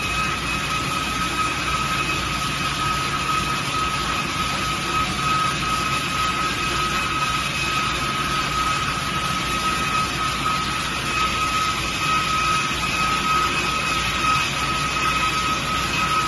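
CNC diamond wire saw running as it cuts a stone slab: a steady machine noise with a constant high whine that holds one pitch.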